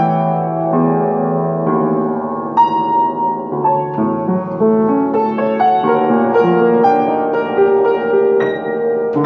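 Upright piano played solo: a Filipino ballad from a medley of classics, with a melody in the upper notes over held chords in the bass.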